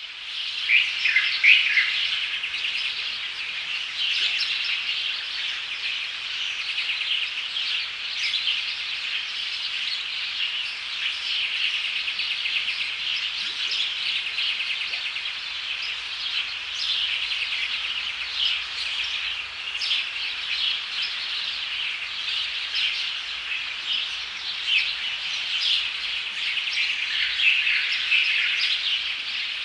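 A chorus of many birds chirping and calling at once, dense and continuous, with no single voice standing out.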